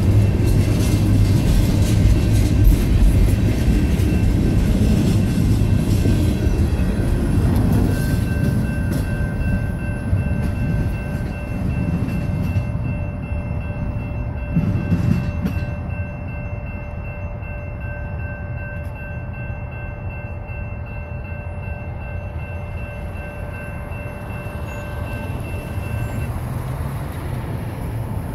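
Freight train of covered hopper cars rolling past close by, with a heavy rumble and wheel clatter that ease off as the train pulls away. Faint steady high tones run through the middle and stop near the end.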